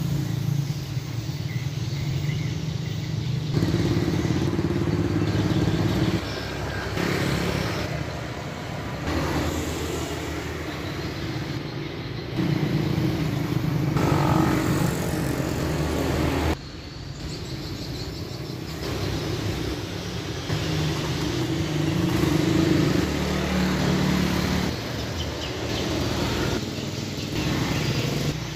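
Motorcycle and other vehicle engines running in street traffic, the engine note shifting in steps and changing abruptly a few times.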